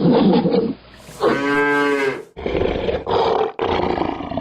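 Animal calls in short clips cut one after another: a rough roar-like call, a pitched call with a clear tone about a second in, then two more rough roar-like calls.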